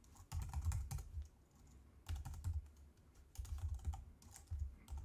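Typing on a computer keyboard: clattering keystrokes in about four short runs, with brief pauses between them.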